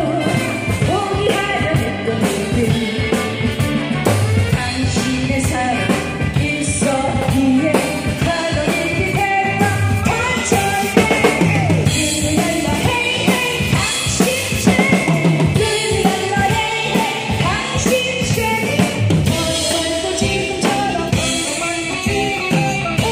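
A woman singing a trot song live into a microphone, amplified through stage speakers, over a drum kit keeping the beat with kick drum, snare and rimshots.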